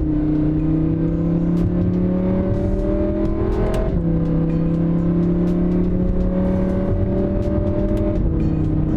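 Audi R8's V10 engine pulling under light acceleration, its pitch climbing slowly and then dropping suddenly at about four seconds and again near the end as it upshifts. Sharp clicks from the magnetic carbon-fibre paddle shifters come just before the shifts.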